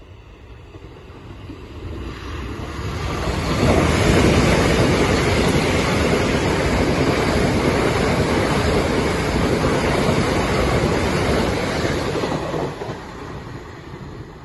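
Southern passenger train passing through the station at speed. Its rumble and rush grow as it approaches, hold loud and steady for about nine seconds as the carriages go by, then fade as it runs off down the line.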